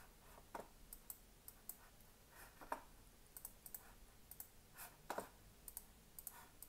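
Faint, irregular clicks of a computer mouse and keyboard, a few a second, in a quiet room.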